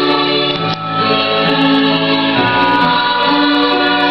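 Background music: choral singing, with voices holding long chords that shift to new chords twice.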